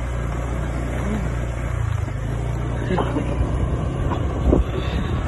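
Motorcycle engine running steadily while riding over a rough dirt track, with a few short knocks.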